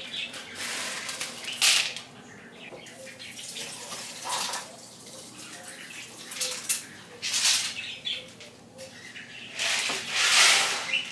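Kitchen tap water running and splashing in a plastic bowl in several short bursts as dry beans are rinsed, with the loudest splash near the end as the bowl is tipped toward a cooking pot.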